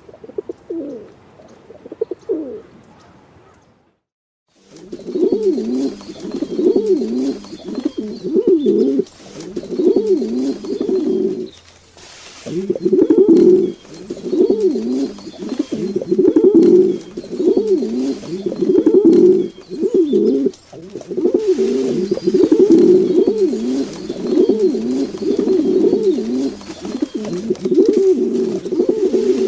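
Pigeons cooing in repeated, rolling phrases. There are a few coos, then a brief break about four seconds in, then almost continuous cooing.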